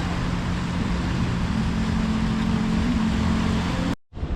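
A steady engine drone with a low hum under outdoor noise, broken by a sudden brief dropout to silence near the end.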